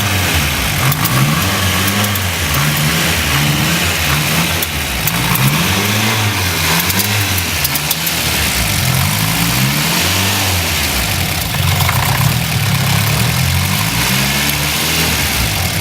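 Turbocharged car engine with a Garrett GT4088R turbo being revved up and down over and over, its pitch rising and falling every couple of seconds, with the strange noise that the owner puts down to the turbo.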